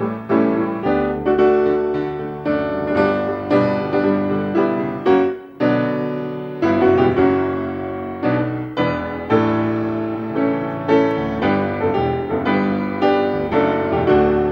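Solo piano background music: a continuous run of struck chords and notes, each fading after it is played.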